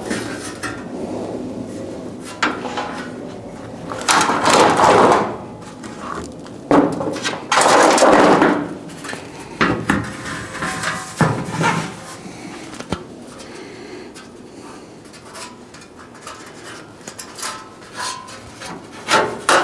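A hand-formed sheet-metal wheel-tub panel being handled and fitted against the El Camino's steel wheel well: metal scraping and rattling, with two louder scrapes about four and eight seconds in and scattered light knocks and clunks.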